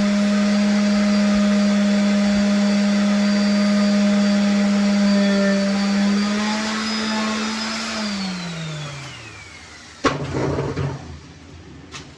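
An electric motor, such as a shop vacuum or power tool, runs at a steady pitch, then is switched off about eight seconds in and winds down with a falling whine. A sharp knock and a short clatter follow, with another click near the end.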